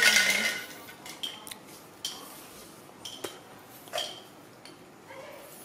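Hard plastic toys from a toy fishing game clicking and clinking against a tile floor: a handful of separate light knocks spread out over a few seconds.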